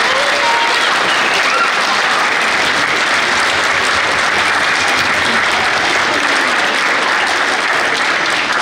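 Audience applause: a hall full of children and adults clapping steadily, with a few voices heard over it near the start.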